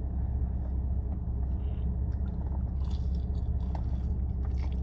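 Someone chewing and biting into sauced chicken wings, with small wet, crunchy clicks about three seconds in and again near the end. A steady low hum runs underneath.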